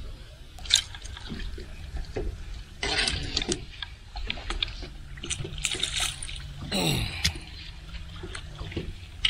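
Choppy lake water lapping and splashing against a boat's hull, over a steady low wind rumble. Scattered clicks and knocks of gear being handled on the deck run through it, the sharpest just under a second in, and a short falling tone sounds about seven seconds in.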